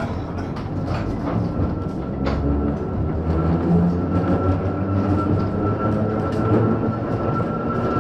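A 1915 Ringhoffer tram from Prague running, heard from inside the car: a low rumble that builds over the first few seconds and then holds steady, with scattered clicks. A steady high whine sets in about two seconds in.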